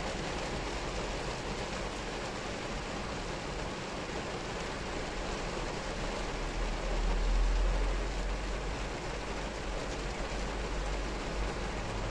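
Heavy rain falling on a car's roof and windscreen, heard from inside the cabin as a steady hiss. A low rumble underneath swells for about two seconds in the middle.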